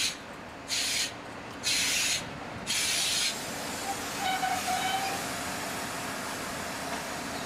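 Steam locomotive chuffing slowly, about one hissing exhaust beat a second. About three seconds in this gives way to a steady hiss with a faint, brief high squeal.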